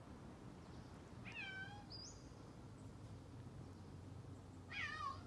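An animal calling twice, each a short call that falls in pitch, about three and a half seconds apart, with a brief high chirp just after the first.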